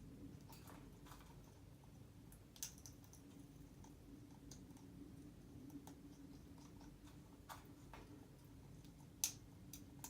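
Faint, scattered sharp clicks from an African grey parrot, roughly one a second at uneven spacing, the loudest about nine seconds in, over a faint steady hum.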